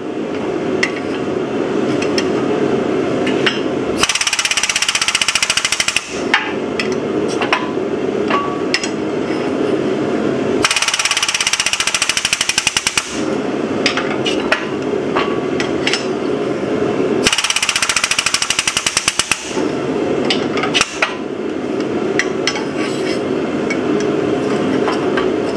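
Hydraulic shop press being hand-pumped down to cup a red-hot steel disc into a rounded die. Under it runs steady workshop noise, with three stretches of about two seconds each of fast mechanical rattling and scattered sharp metal clicks.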